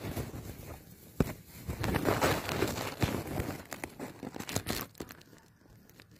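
Close rustling and handling noise at the microphone, with a sharp click about a second in and a denser stretch of rustling a little later.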